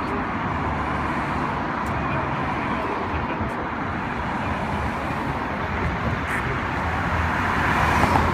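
Convoy vehicles (a car, then an ambulance) driving past on a town street, engines and tyres on asphalt; the engine noise grows louder near the end as motorcycles come up.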